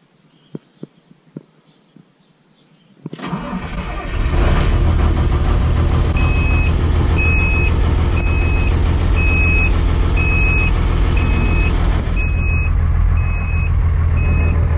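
John Deere 544G wheel loader's diesel engine starting about three seconds in, catching within about a second, then idling steadily on a cold start. A cab warning beeper sounds about once a second over the idle, starting a few seconds after the engine catches. A few light clicks come before the start.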